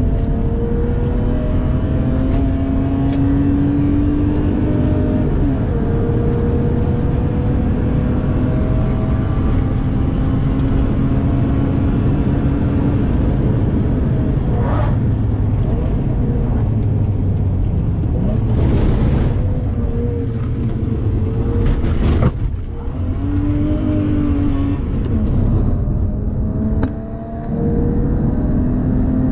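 A BMW E36's 3.0-litre stroked straight-six (an M50B25 iron block with S50B30 US crank and pistons, through an X-pipe exhaust), heard from inside the cabin under hard acceleration. Its pitch climbs steadily as it pulls, then drops back, several times over, with a couple of brief lifts off the throttle in the last third. The engine sounds healthy.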